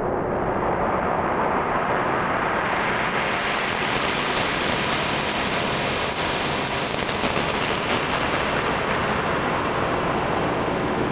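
Sound-design texture patch from the Man Makes Noise Puro pads-and-soundscapes library: a dense, hiss-like wash with faint held tones underneath. It grows brighter over the first few seconds, stays bright through the middle and slowly darkens again near the end.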